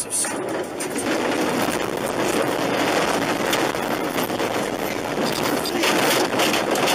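A car running off the road through grass and bushes: a loud continuous rush of tyre and undergrowth noise, crackling with vegetation scraping and slapping against the body and windscreen.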